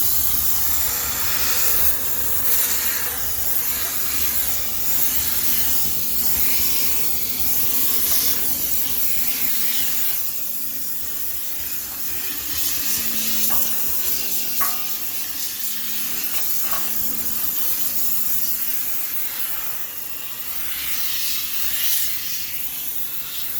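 High-pressure steam cleaner jetting steam, a steady hiss that swells in spells as it sterilises the inside of a washing machine.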